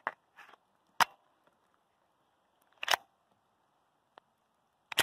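A handful of sharp mechanical clicks from handling a Phantom Glock 17-style blank pistol and its magazine, loaded with a blank cartridge. The loudest click comes about a second in and a quick double click near three seconds, with fainter ticks between.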